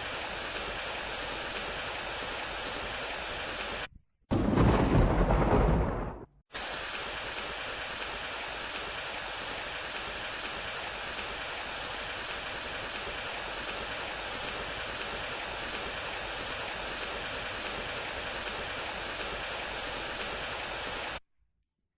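Steady rain, broken about four seconds in by a much louder burst of thunder lasting about two seconds. The rain then resumes and cuts off suddenly near the end.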